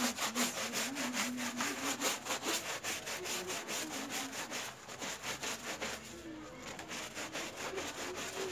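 Plastic hand scrub brush scrubbing a wet, soapy doormat on a concrete floor in rapid back-and-forth strokes, about four to five a second, easing off slightly in the second half.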